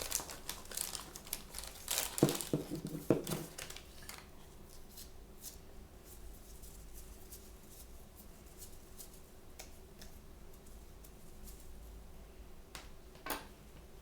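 Blind-bag packaging crinkling and tearing as it is opened by hand, with a few sharp knocks about two to three seconds in. Then only faint occasional handling clicks, and one soft knock near the end.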